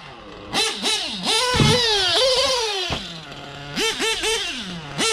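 Novarossi .25 nitro engine in an RC truggy revving hard in rising and falling bursts, dropping to a steady idle about three seconds in, then blipping the throttle in quick revs. A thud about a second and a half in. The engine is still being broken in.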